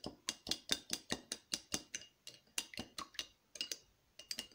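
Metal utensil clinking quickly against a small ceramic bowl while whisking a vinaigrette, about five clinks a second, with short breaks near the middle and near the end.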